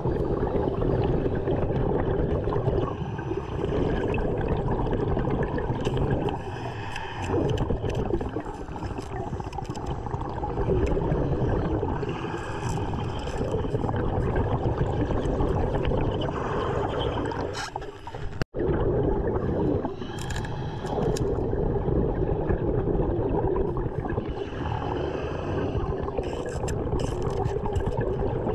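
Underwater sound of a diver breathing on an air supply: bubbling exhalations come every four or five seconds over a steady low rumble.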